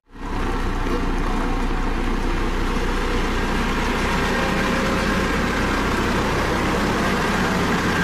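Dynapac CC522 tandem asphalt roller running steadily as it compacts fresh asphalt, a constant engine and machine rumble.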